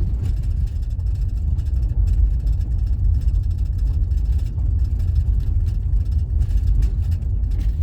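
Minivan driving on a rough dirt road, heard inside the cabin: a steady low rumble of engine and road noise, with faint scattered knocks from the rough surface.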